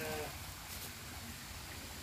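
The end of an animal's call, one pitched cry falling slightly, which stops about a quarter second in, then a steady faint hiss.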